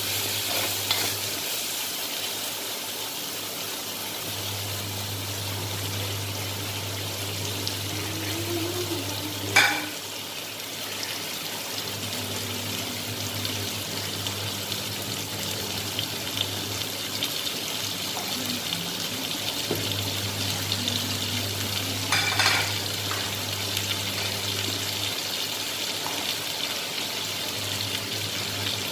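Chicken, onion and potato sizzling as they stir-fry in a wok, a steady hiss under a low hum that comes and goes. The spatula clacks sharply against the wok once about a third of the way in, then clatters briefly about two-thirds of the way through.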